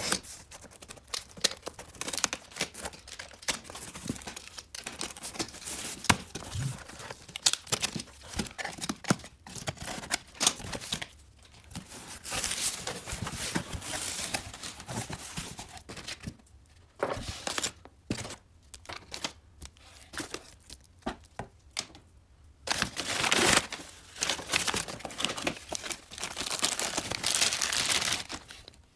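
A utility knife slitting packing tape on a cardboard box, then cardboard flaps being opened and crumpled kraft packing paper rustling and crinkling as parts are taken out.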